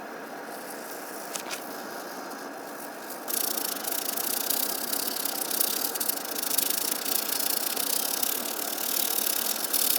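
Jiffy Pop foil pan being shaken over a campfire, with the unpopped kernels rattling inside. About three seconds in the rattling gets louder and harsher.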